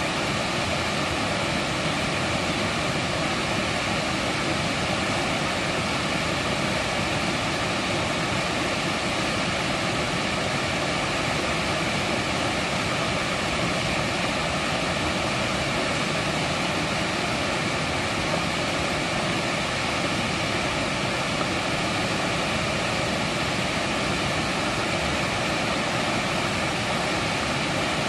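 Valley stream water running, a steady unbroken rush with no changes.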